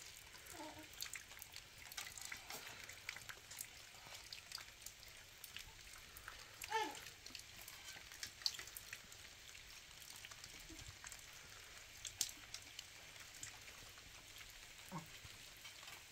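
Light rain pattering steadily, with scattered sharp drips. A short falling call cuts through about seven seconds in.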